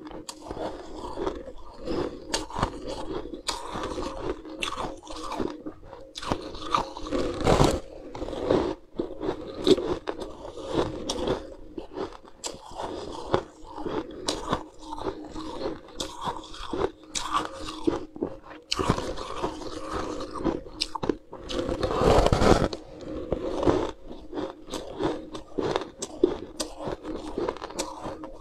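Close-up crunching of frost-covered ice being bitten and chewed: many irregular, sharp crunches, with two louder bouts of biting about a third and three quarters of the way through, over a faint steady hum.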